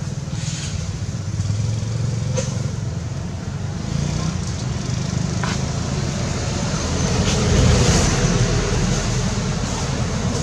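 Steady low rumble of nearby motor traffic, swelling about eight seconds in, with a couple of faint clicks.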